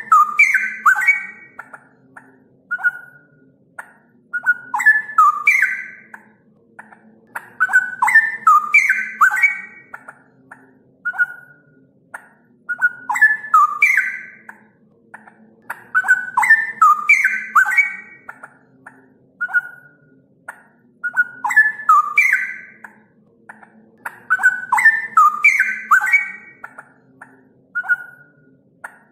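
Straw-headed bulbul (cucak rowo) singing: loud clusters of rich whistled notes in phrases that repeat about every four seconds, with single short notes between them. It is a lure recording, played to caged cucak rowo to set them singing.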